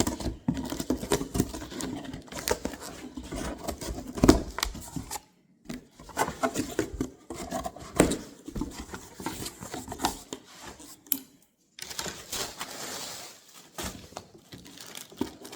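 A cardboard shipping box being handled and opened by hand: irregular knocks, scrapes and clicks of the cardboard, with rustling of packaging, cut by two brief silences.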